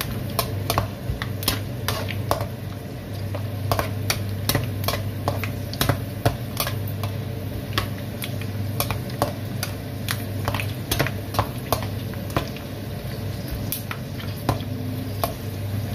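Pork skin for chicharon deep-frying in oil in a pan, sizzling with many sharp, irregular pops and crackles as a metal utensil stirs the pieces. A steady low hum runs underneath.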